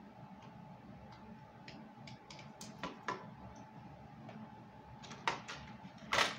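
Hard plastic clicking and knocking as a toy RC car's body and chassis are handled: scattered light clicks, then a couple of louder knocks near the end.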